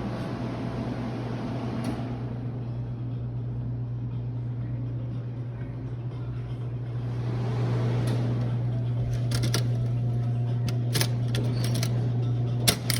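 A steady low mechanical hum, with a series of sharp clicks and knocks starting a little past the middle.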